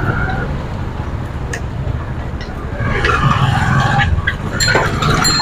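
Road and traffic noise heard during a ride, with wind buffeting the microphone and scattered clicks, and a few brief high ringing tones near the end.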